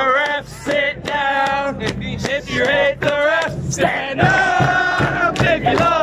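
A crowd of football supporters singing a chant together, with a steady drum beat.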